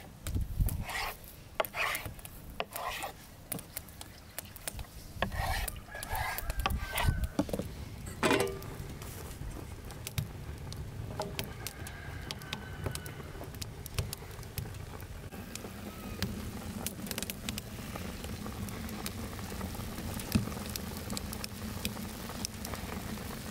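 Soft taps and rustles of thin dough strips being lifted and handled on a wooden board, with a few short high calls in the background. Later a steady low hum sets in while the strips are laid over reed sticks in a steaming pot.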